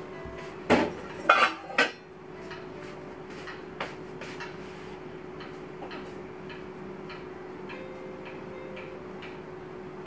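Kitchen dishes and utensils clattering as they are handled: three sharp clinks close together about a second in, then lighter scattered taps and clicks over a faint steady hum.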